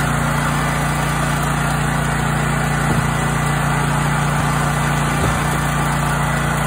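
Black Max 8450 portable generator's Honda engine running steadily at a constant governed speed.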